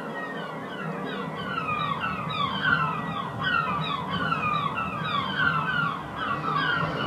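Sound-art piece of many overlapping whistle-like tones, each sliding quickly downward, repeating several times a second over a low hum. It grows a little louder after about a second.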